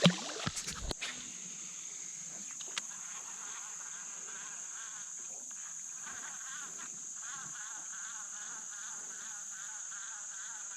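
Insects singing steadily in streamside woods: a constant high-pitched buzz, joined about three seconds in by a lower, pulsing trill. A few light knocks sound in the first second.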